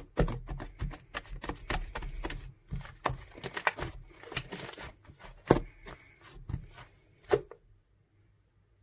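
Irregular clicks, taps and rustling of something being handled close up, stopping abruptly near the end.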